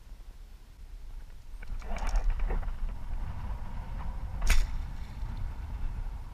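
A bowfishing bow being shot: rustling and small clicks as the bow is raised and drawn, then one sharp, loud snap about four and a half seconds in as the string is released and the arrow flies, trailing its line.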